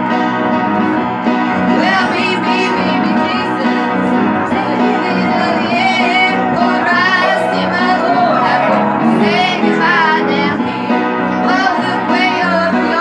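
Women singing a gospel song together, with upright piano accompaniment.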